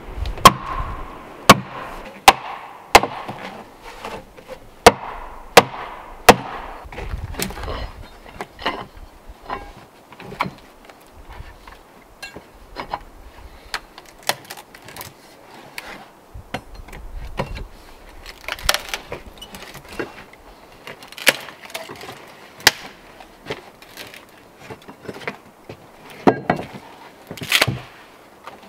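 A wooden mallet striking a froe set in the end of a log: about eight sharp, evenly paced blows in the first seven seconds. Irregular knocks and splitting cracks follow as the log is levered and rived apart, with the loudest cracks near the end as it splits in two.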